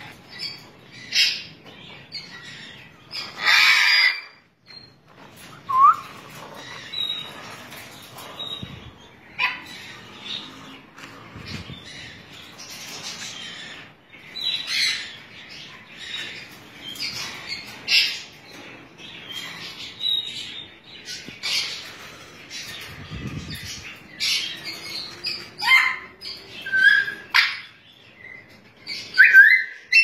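African grey parrots giving repeated short squawks and whistles, with a long harsh squawk about four seconds in and a few rising whistles.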